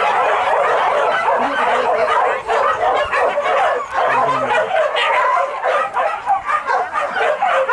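A pack of hunting dogs yelping and baying in chorus, many voices overlapping without a break.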